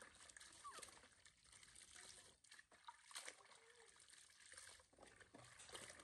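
Faint splashing and trickling of water as clothes are rubbed and squeezed out by hand in a plastic washing basin, with a couple of brief squeaks.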